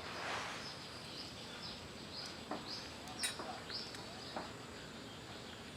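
A bird chirping over a faint outdoor background: a string of short, high, falling chirps, with a few sharp light clicks among them and a brief rustle at the start.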